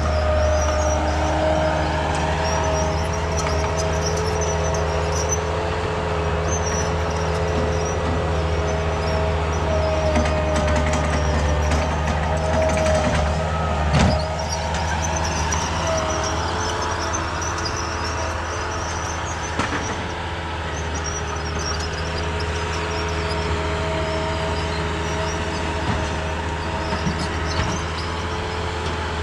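Diesel engine of earthmoving equipment running steadily while working, with a high wavering metallic squeal over it and one sharp clank about halfway through.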